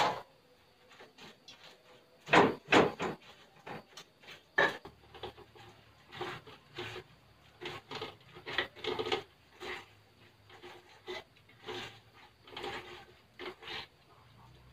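Hands kneading and squeezing grated coconut in a metal pot with water to press out coconut milk: irregular rubbing, squishing and scraping sounds, with a few louder knocks in the first few seconds.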